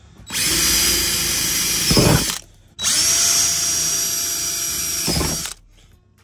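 Power drill boring holes through a gloss black plastic car front splitter, in two runs of two to three seconds with a short pause between. The motor whines steadily and the bit grabs with a low surge near the end of each run as it breaks through. The drilling stops about a second before the end.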